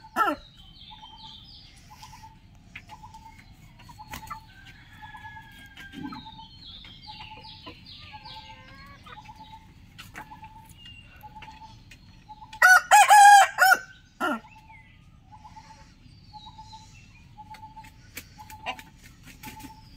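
Rooster crowing: one full, loud cock-a-doodle-doo about two-thirds of the way through, with the tail end of an earlier crow right at the start. Between the crows a bird repeats a short note over and over, and small birds twitter faintly.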